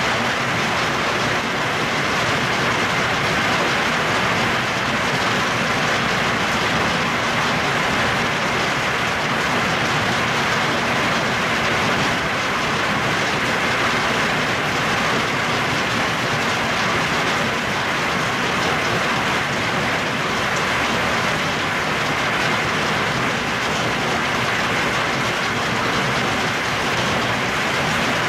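Heavy hail and rain pelting down on leaves and the ground: a loud, steady, dense clatter of countless small impacts that does not let up.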